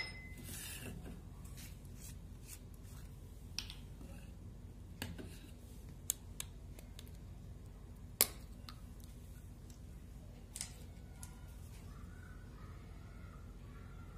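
Sparse light clicks and taps from small kitchen containers and utensils being handled on a stone counter, the sharpest about eight seconds in, over a faint steady low hum.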